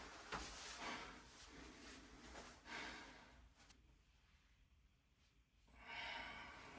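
A person's faint breathing: three soft breaths, the last and loudest near the end.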